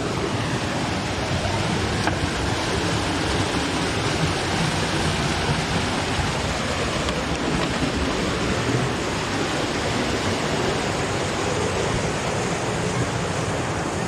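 Steady rush of a waterfall and stream pouring over rocks.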